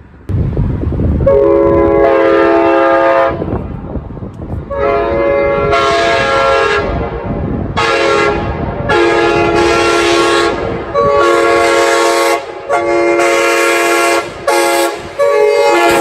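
A 1990s parts-build Nathan K5LA five-chime train horn sounding a chord in about six long blasts of one and a half to three seconds each, with short gaps between them. A low rumble runs underneath.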